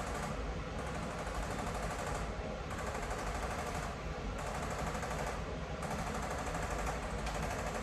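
Handheld electric percussion instrument rattling rapidly and without a break as it taps against the body, its sound changing slightly every second or two.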